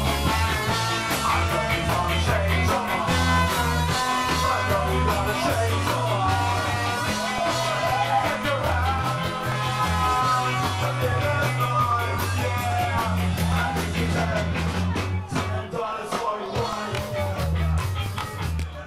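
Ska band playing live, loud, with a singer over a walking bass line and steady drums.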